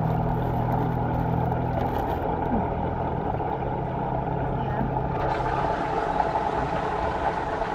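A motor running steadily with a low hum that dies away about five and a half seconds in, over a constant background noise.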